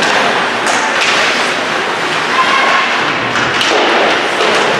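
Ice hockey game play in a rink: skates scraping on the ice and a few sharp knocks from sticks and puck, with players and spectators calling out.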